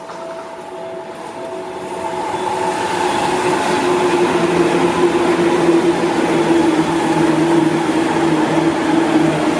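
Seibu Ikebukuro Line electric train passing over a level crossing. It grows louder over the first three seconds, then runs steady with rushing wheel noise and a humming tone.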